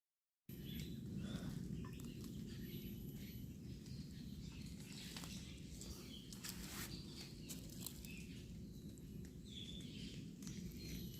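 Outdoor ambience that starts abruptly about half a second in: a steady low rumble with a few short, high bird chirps and scattered light clicks.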